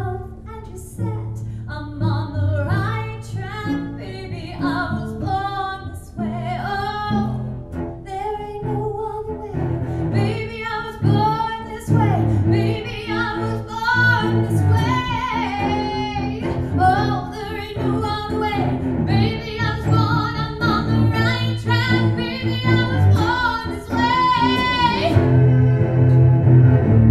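A woman singing with a cello accompanying her. About 25 seconds in, the voice stops and the cello plays on alone, a little louder.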